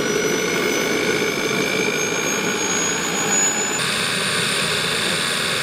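Model turboprop gas-turbine engine running on the ground, a high turbine whine over the noise of the spinning propeller. The whine climbs slowly in pitch, then the sound changes abruptly about four seconds in.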